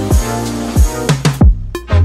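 Background music: a beat with deep kick-drum hits under held chords, which turns sparser and more drum-driven about one and a half seconds in.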